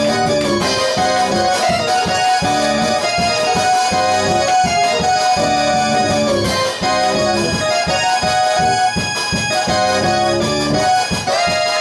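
Electronic keyboard playing sustained chords in a reedy, accordion-like voice over a steady repeating pulse in the lower notes.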